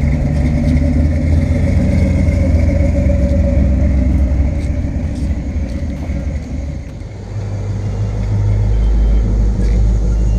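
Engines of classic cars and old trucks running as they drive slowly past. The sound drops about seven seconds in, then another car's engine comes up, deeper and louder.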